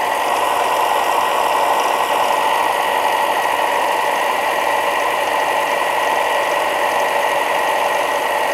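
Electric bench belt/disc sander with a 4-inch by 36-inch sanding belt running with no load: a steady motor hum and belt whir. The belt is spinning free while its tracking knob is turned to centre it on the rollers.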